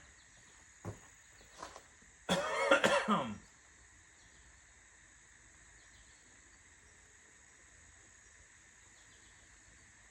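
A person coughs once, a loud burst lasting about a second, after two short faint clicks. After the cough there is only a faint steady high hiss.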